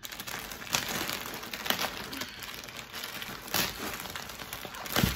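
Plastic poly mailer bag crinkling and rustling as it is pulled open by hand, with a few sharper, louder crackles.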